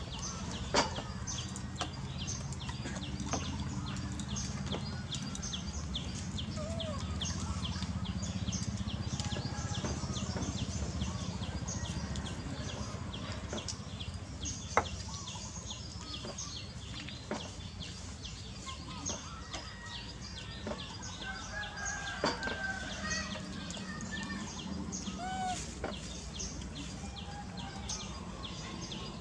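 Outdoor ambience: rapid, regular high chirping at about three a second over a steady low rumble, with a few short bird calls and some sharp clicks.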